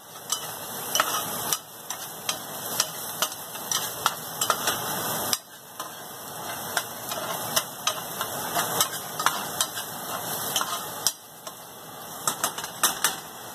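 Chopped onion and ginger sizzling as they fry in a metal pan, with many light clicks and scrapes from stirring them against the pan.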